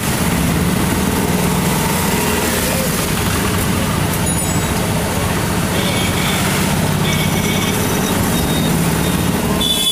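Loud, steady noise of a busy outdoor street fair, a dense mix of crowd and traffic, with a few short high-pitched tones from about four seconds in.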